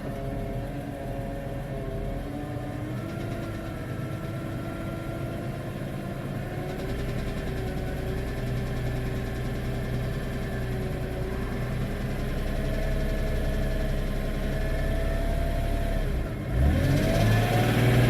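BMW E46 M3's S54 straight-six engine running steadily, its pitch drifting slowly, then getting louder near the end as the engine speed rises and falls. It has a noise the owner suspects is rod knock.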